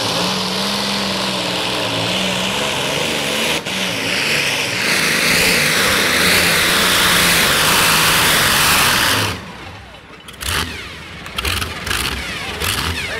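Twin Hemi V8 engines of a modified pulling tractor running at full throttle under load, with a brief dip about three and a half seconds in and getting louder around five seconds in. About nine seconds in the throttle is cut at the end of the pull, and the engines drop back to an uneven idle.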